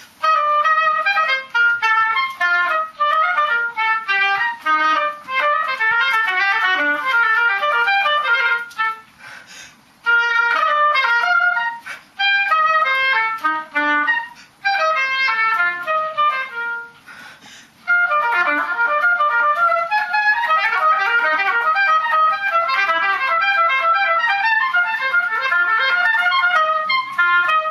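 Solo oboe playing quick runs of short notes, pausing briefly twice.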